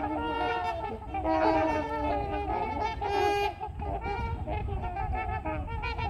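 A flock of trumpeter swans calling, many horn-like honks overlapping in a continuous chorus. The calls belong to a pecking-order dispute among the swans.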